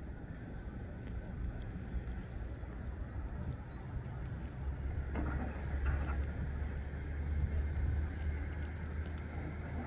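Wind rumbling on the microphone, with small birds chirping in short high notes every second or so. About five seconds in there is a brief, louder sound.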